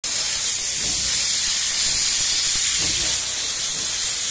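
Steam locomotive venting steam at the side of the engine: a loud, steady hiss.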